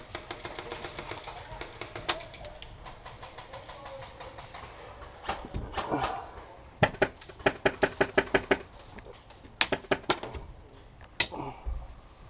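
Airsoft electric guns firing on automatic: several bursts of rapid, evenly spaced clicks, a fainter run at the start and a louder burst about seven seconds in, with a few more shots near the end.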